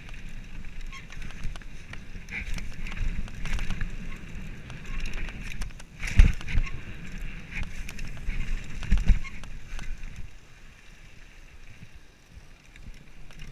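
Mountain bike riding fast down a dirt trail: tyres rolling over packed dirt and the bike rattling over bumps, with wind on the microphone and short squeals. There are two heavy thumps, about six and nine seconds in, from hard bumps or landings, and the noise eases off near the end.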